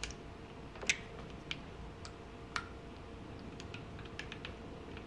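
Small metallic clicks and ticks of a hand tool and circlip against a motorcycle rear brake master cylinder as the circlip is turned in its groove, the check that it is properly seated. Scattered light clicks, two sharper ones about a second in and about two and a half seconds in.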